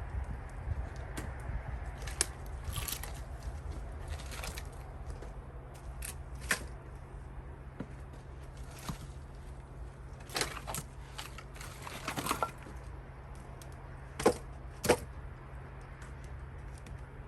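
Wood fire crackling with scattered pops, two sharper cracks about three-quarters of the way through, over a steady low rumble.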